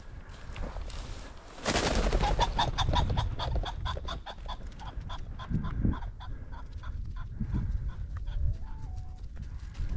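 Rooster ring-necked pheasant flushing from cover: a sudden rush of wingbeats, then a long run of rapid cackling notes, about four or five a second, that fade as the bird flies off.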